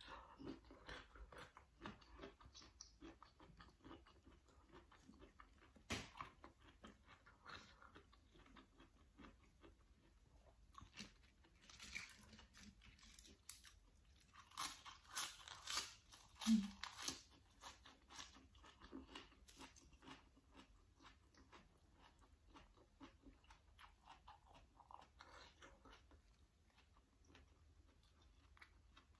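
Faint close-up chewing and crunching of boiled bamboo shoot and raw vegetables, with small wet mouth clicks. Louder crunching comes about twelve seconds in and again around fifteen to seventeen seconds.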